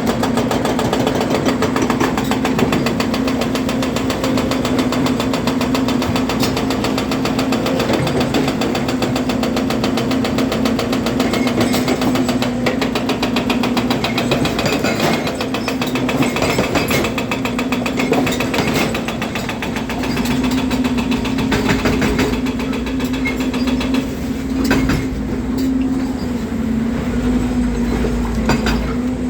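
Volvo EC300DL tracked excavator running, with a steady engine drone and a fast, continuous mechanical clatter over it.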